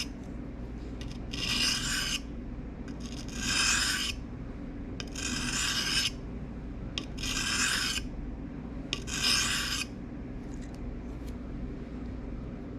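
Pocket knife blade drawn along a sharpening stone in five slow, even strokes, about one every two seconds, each a dry, high rasping scrape, as the dull blade's other side is honed. The strokes stop a little under ten seconds in, leaving only a few faint ticks.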